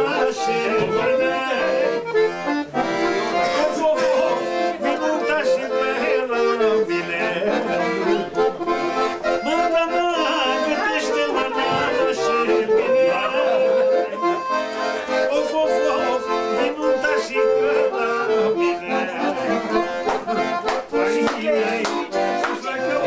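Piano accordion played live, a continuous traditional tune of quickly changing notes.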